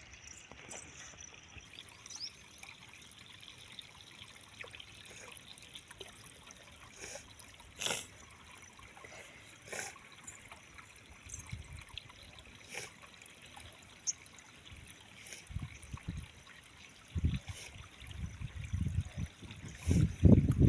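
Shallow stream water trickling, with a few faint clicks. Low thumps come in toward the end, louder over the last few seconds.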